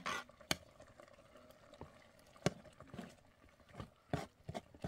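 Metal spoon stirring a pot of liquid, clinking against the pot's side in a handful of sharp, irregular knocks.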